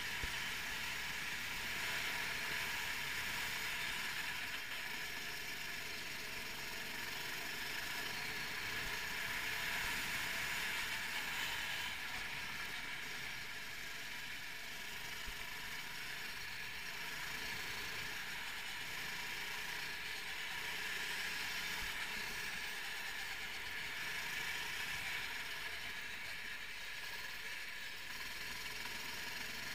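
A 390cc kart's single-cylinder four-stroke engine runs at speed on track, heard from on board. It is a steady drone whose loudness swells and eases gently as the kart goes through the corners.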